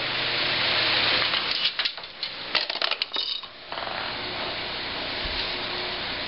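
An electric desk fan runs with a steady rush of air. About one and a half to three and a half seconds in, a quick string of sharp clicks and clinks comes from the metal ball clattering down the plastic ramp of a homemade chain-reaction machine and knocking the next parts into motion.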